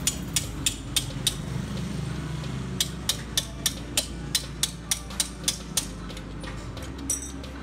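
Ratchet wrench clicking on the motorcycle's rear axle, sharp metal clicks about three a second in two runs with a short pause between them. A brief high squeak comes near the end.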